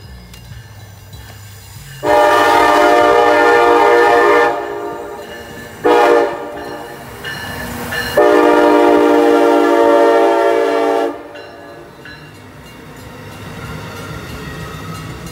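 Horn of an Amtrak ACS-64 electric locomotive passing at speed: a long blast about two seconds in, a short blast, then another long blast of about three seconds. After it, the passing passenger cars rumble on the rails.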